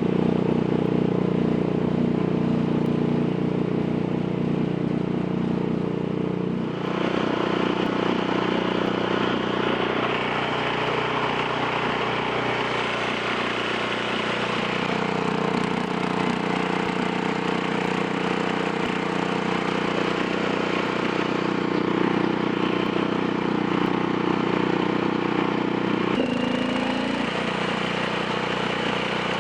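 A vehicle engine running steadily under way. Its engine note changes about seven seconds in and again with a brief shift in pitch near the end.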